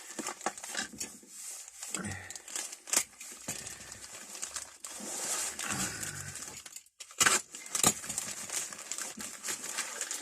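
Paper or plastic wrapping crinkling and rustling while hand tools are handled, with scattered small clicks and clinks of metal and two sharper knocks about seven seconds in.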